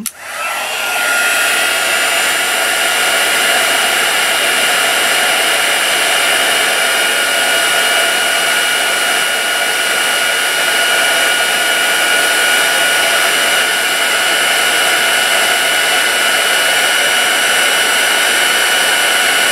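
Craft heat embossing tool switched on and spinning up within the first second, then running steadily: a rush of blown air with a steady fan whine. It is heat-setting embossing powder on a stamped paper strip.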